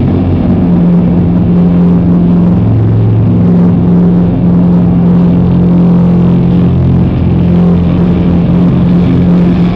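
Loud live band with electric guitars holding long, low sustained notes that shift in pitch every second or two.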